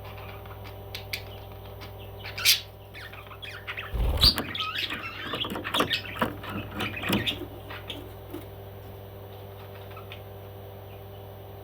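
A parrot squawking: one sharp call about two and a half seconds in, then a dull bump and a quick run of short squawks lasting about three seconds, over a steady low hum.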